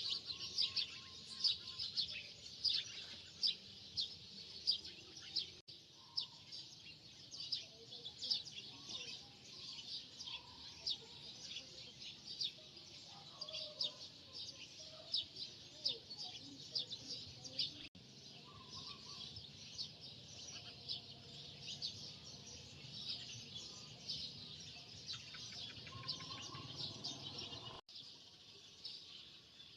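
Many small birds chirping rapidly and continuously, a dense chatter of short high chirps, with a few brief dropouts.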